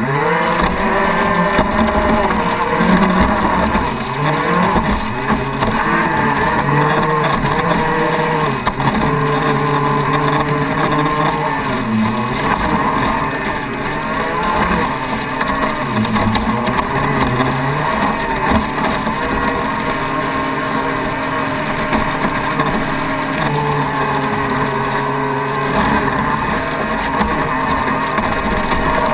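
Twin Graupner Speed 600 Eco electric motors of an RC speedboat running at speed, their whine rising and falling with the throttle and dipping briefly several times through the middle, over the rush of water along the hull.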